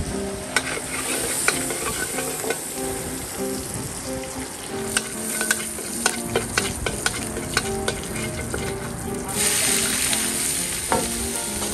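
Garlic frying in oil in a steel wok, with a metal spatula clicking and scraping against the pan. About nine seconds in, a plateful of chopped cabbage goes in and the sizzle jumps to a loud hiss.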